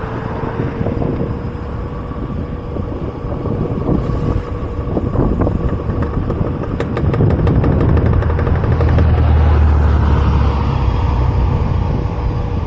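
Electric bike riding along: a steady whine from the rear hub motor over road and wind rumble that swells a little past halfway. A run of rapid clicking comes in about six seconds in and lasts a couple of seconds.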